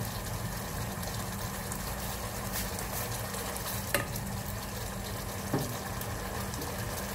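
Thick minced-pork sauce, thickened with cornstarch, simmering and bubbling in a small pot on a gas burner, over a steady low hum. Two sharp ticks come about four and five and a half seconds in.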